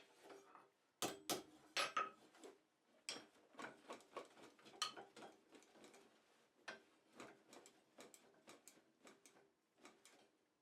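Irregular light clicks and clinks of small metal pieces being handled, a cluster of sharper ones a little over a second in, then scattered softer ticks.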